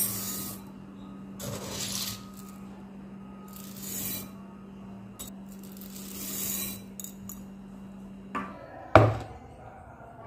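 Dry split lentils (toor dal, then chana dal) poured from a steel tumbler into a glass bowl, rattling in four short pours. A faint steady hum runs underneath, and there are two sharp knocks near the end.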